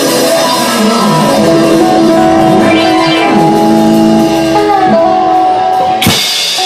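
Live blues band (electric guitars, keyboard and drum kit) playing held chords with bending guitar notes, ending on one sharp accented hit about six seconds in that rings out.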